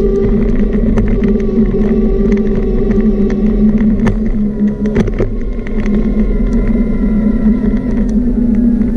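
Small motor running steadily while the camera rides along, with a hum and a whine whose pitch dips slightly near the end, over frequent clicks and rattles from bumps in the path.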